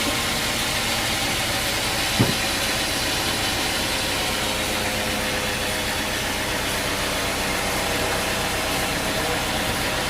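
An engine running steadily at a constant speed, with a single sharp knock about two seconds in.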